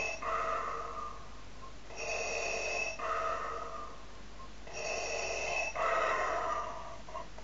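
Darth Vader toy playing the character's mechanical respirator breathing: a slow in-and-out breath cycle repeated three times, about one every three seconds.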